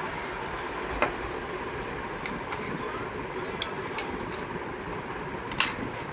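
Several short, sharp clicks and taps of small hard parts being handled on a desktop computer during repair, over a steady background rumble; the loudest click comes near the end.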